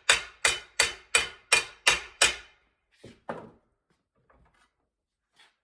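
Hammer striking sheet steel in a steady rhythm: about seven ringing blows, close to three a second, then two lighter knocks a moment later. The blows are hand-forming a rust-repair patch panel.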